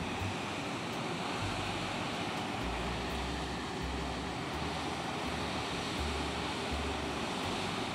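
Wind on the microphone: a steady hiss with low rumbles that come and go every second or so.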